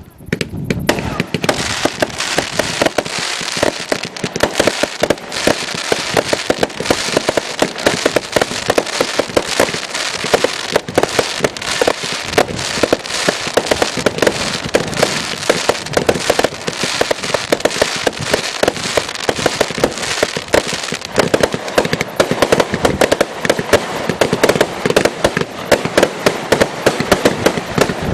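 Fireworks display in a rapid, unbroken barrage of bangs and crackling that starts suddenly and keeps up throughout.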